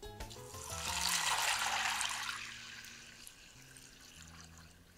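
Cold water poured from a pitcher into a crockpot over dry pinto beans, a splashing pour that swells and then fades out about three seconds in.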